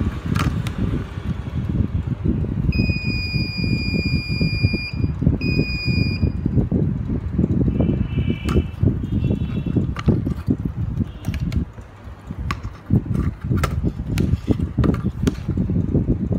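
Multimeter continuity beeper giving a steady high beep of about two seconds, then a shorter one, as the probes find a short circuit on the laptop motherboard. A constant low rumble with scattered clicks runs underneath and is the loudest sound.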